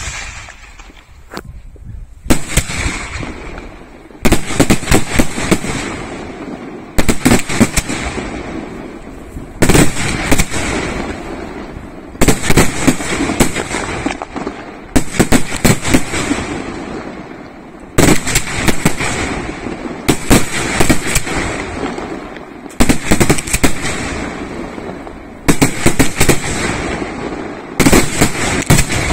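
Aerial fireworks shells bursting in a steady sequence, one about every two and a half to three seconds. Each burst is a quick cluster of sharp bangs that trails off into echo.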